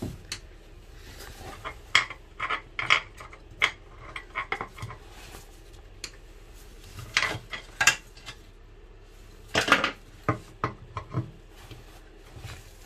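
Hands working at the water ballast vent fitting while changing its vent plug: irregular clicks, knocks and short scrapes in bursts, with short pauses between.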